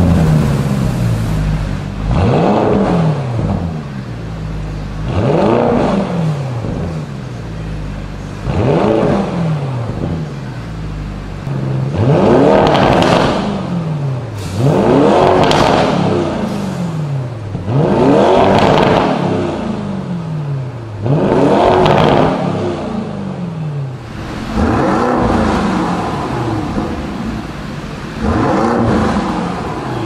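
Lamborghini Urus twin-turbo V8 through a Fi Exhaust valvetronic cat-back system, revved in place about ten times, roughly every three seconds, each rev rising and falling in pitch. The exhaust valves are closed for the first revs and open for the later ones.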